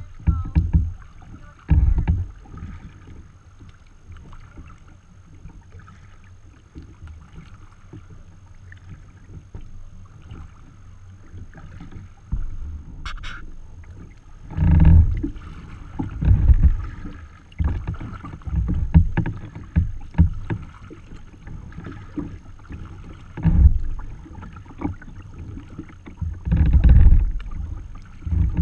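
Choppy water lapping and slapping against the hull of a sea kayak under way, with irregular low thumps and wind on the microphone, heavier and more frequent in the second half. A single short click about halfway through.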